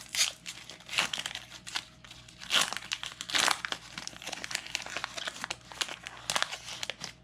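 Foil Pokémon booster pack wrapper crinkling and rustling in the hands as it is opened, in irregular bursts, the loudest a little past the middle.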